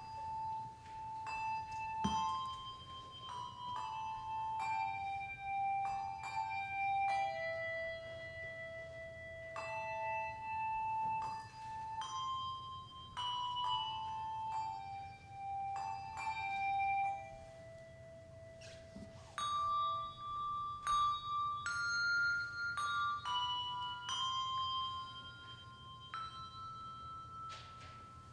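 Handbell choir ringing a slow melody, one bell at a time, each struck note ringing on for about a second before fading.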